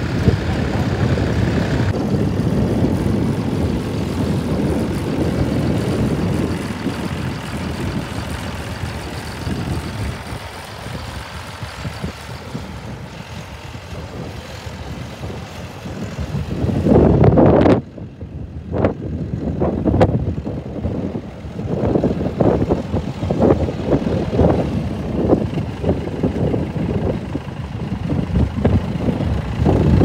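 Tractor diesel engine running under load while pulling a plough through the soil, with a Ford 6410 working the field in the later part. There is a loud surge about seventeen seconds in that cuts off abruptly, then an uneven, pulsing engine sound.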